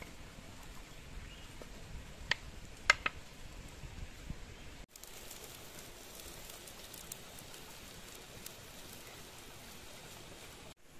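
A spatula scraping masala from one pan into a wok, clinking sharply against the metal three times about two to three seconds in. About halfway through it gives way to a steady soft crackle of the keema frying in the wok over the wood fire.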